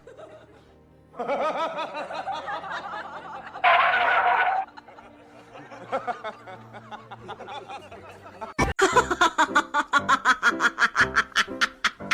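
Laughter: a voice, then a brief loud noisy burst, then about four seconds of rapid, evenly spaced laughing pulses, roughly six a second, in the second half.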